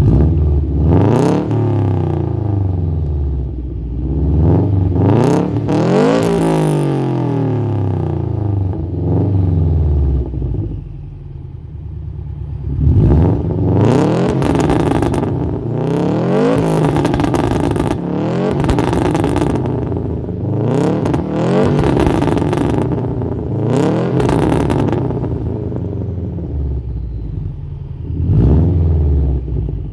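Subaru Legacy BE5 flat-four revved in repeated free-rev blips at standstill through a catless HKS Jasma 51 straight-pipe exhaust, each rev rising and dropping back toward idle. It crackles and pops on the overrun from a custom pop-and-bang ('popcorn') map.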